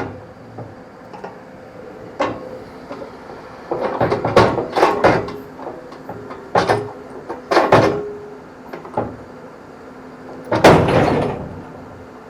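Heavy equipment being loaded onto a trailer: a diesel engine runs steadily under a series of sharp metal clunks and bangs. Several come close together about four to five seconds in, and a longer, louder one comes near the end.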